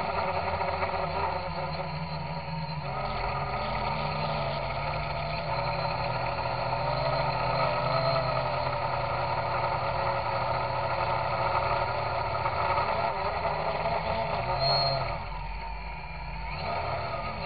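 Electric quadcopter's motors and propellers running, heard from the onboard camera, a steady multi-toned hum that shifts in pitch and level with throttle and eases off briefly near the end. The cheap motors are noisy, which the owner takes for bad bearings out of the box.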